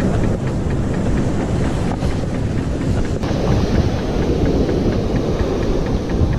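Strong wind buffeting the microphone, a steady low rumble over the sound of surf breaking on the beach.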